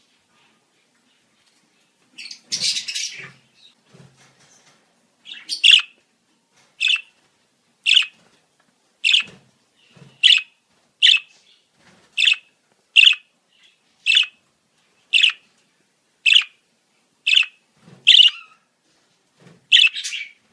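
Budgerigar calling: a scratchy burst of chatter, then a run of about a dozen short, sharp chirps, roughly one a second.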